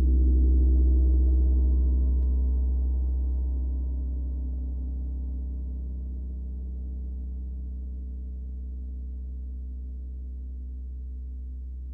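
A large gong ringing after a single strike with a soft padded mallet: a deep hum with a cluster of overtones that swells for about a second and then slowly fades.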